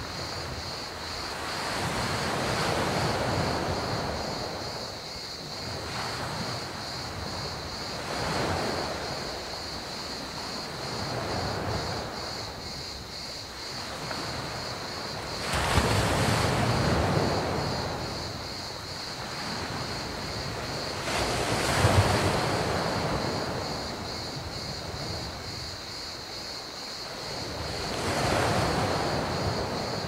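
Small sea waves breaking and washing up a pebble beach, swelling and ebbing every few seconds, with the biggest breakers about halfway through and a little after. Crickets chirp steadily throughout in a continuous high-pitched band.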